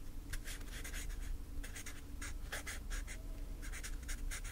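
Writing on paper: short, irregular scratchy strokes with a couple of brief pauses.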